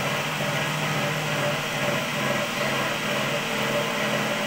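Cotton candy machine running: its motor spinning the head with a steady, even hum.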